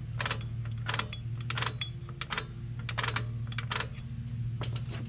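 Rear drum-brake star-wheel adjuster of a 1999 Dodge Caravan being turned with a tool to back off the brake shoes, giving a run of sharp, irregular clicks, several a second.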